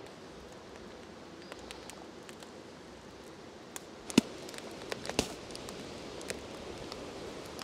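Wood campfire crackling: scattered sharp pops, the loudest about four and five seconds in, over a faint steady hiss.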